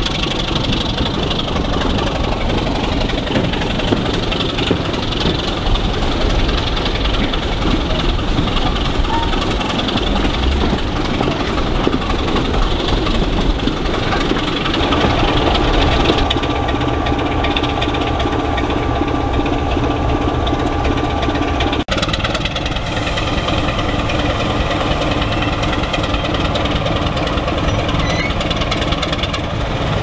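British Rail Class 25 diesel locomotive D7659's Sulzer diesel engine working as it hauls a train, heard first from the carriages behind it mixed with wheel-on-rail noise. After a sudden cut about two-thirds of the way in, the engine is heard from the lineside as a steady note.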